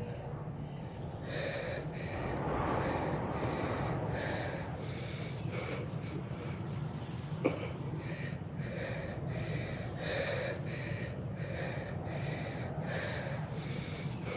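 A woman breathing hard in ragged, wheezing breaths about two a second, with a short pause midway, over a low steady hum; the strained breathing of exhaustion and distress. A single sharp click about halfway through.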